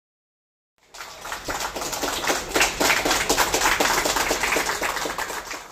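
A group of people clapping their hands in applause, starting about a second in.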